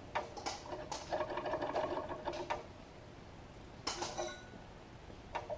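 Carburettor throttle linkage on a White 160AX engine worked by hand with the engine stopped, giving faint, irregular mechanical clicking a few times a second while the accelerator pump is checked for fuel squirts. Near the middle and again near the end there is a single sharper click.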